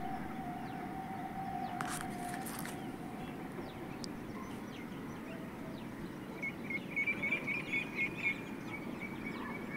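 Steady outdoor background noise with a faint steady tone for the first couple of seconds, then a bird chirping in quick repeated notes for about three seconds from about six and a half seconds in.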